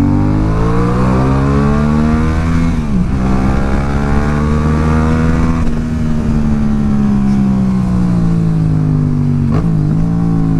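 Yamaha XSR700's parallel-twin engine pulling hard under acceleration. Its pitch climbs, drops sharply at an upshift about three seconds in, and climbs again. It then holds and eases off slightly before another quick shift near the end.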